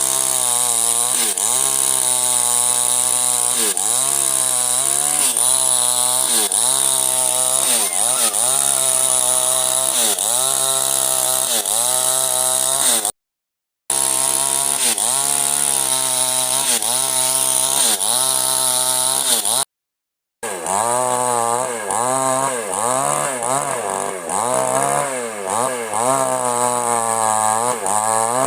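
Chainsaw running at full throttle while cutting wood, its engine pitch dipping and recovering about once a second as the chain bites and bogs under load. The sound drops out twice, briefly.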